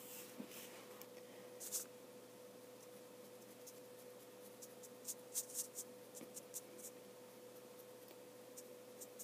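Faint scratchy ticks of a paintbrush being worked over a plastic miniature, clustering about five seconds in, over a faint steady hum.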